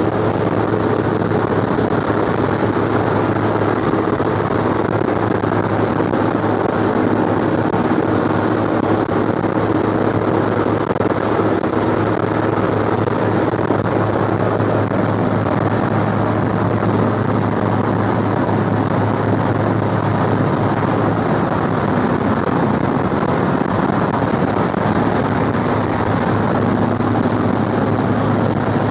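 The B-17's four radial engines, heard inside the fuselage as a loud, steady drone with a constant low hum under it.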